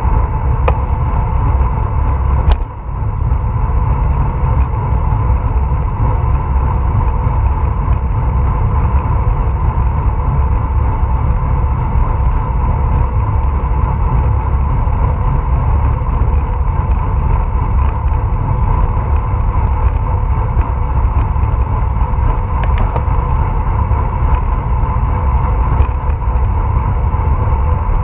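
Wind buffeting the microphone of a bicycle-mounted action camera while riding: a loud, steady low rumble with a faint steady hum, dropping out briefly about two and a half seconds in.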